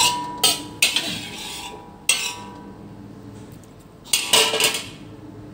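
Kitchen utensil clinking and scraping against pots and dishes: a ringing clink at the start, a couple more knocks within the first second, another near two seconds, and a longer clatter about four seconds in.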